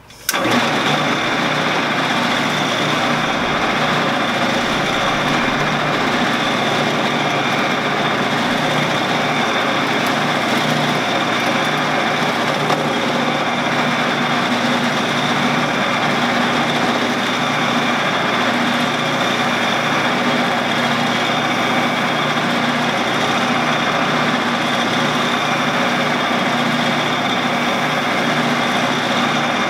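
Shopsmith's headstock motor switching on a fraction of a second in and then running steadily, with a constant hum and a high whine. It is spinning a stainless steel rod that is being polished with metal polish on a rag.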